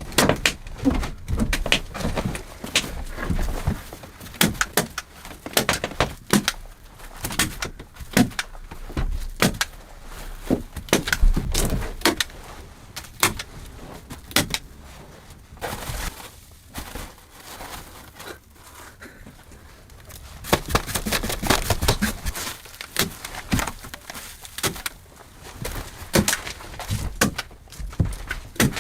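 Irregular knocks, clicks and thuds in quick succession, thinning out a little past the middle and growing dense again after about twenty seconds.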